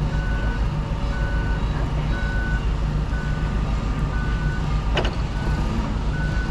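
Forklift reversing alarm beeping about once a second over the forklift's running engine, with one sharp clank about five seconds in.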